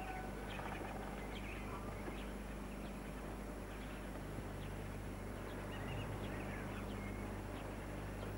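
Faint farmyard poultry calling now and then, scattered short calls, over a steady low hum.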